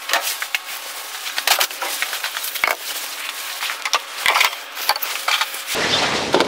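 Handling noise of kitchen things being fetched and moved: scattered clicks, light knocks and crackling rustles, with no motor running.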